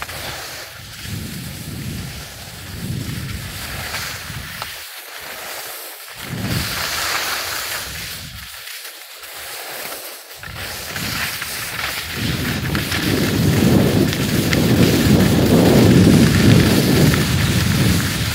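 Rushing wind buffeting the microphone of a body-worn camera while skiing downhill, with the hiss of skis sliding over snow. The low rumble comes in swells and is loudest near the end.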